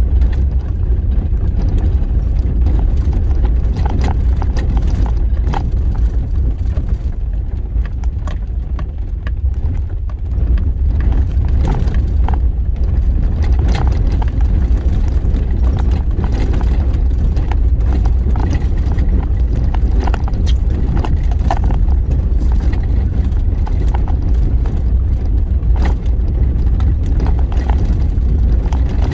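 A 4x4 vehicle driving over a rough, bumpy dirt road, heard from inside: a steady low rumble of engine and road, with frequent small knocks and rattles from the bumps.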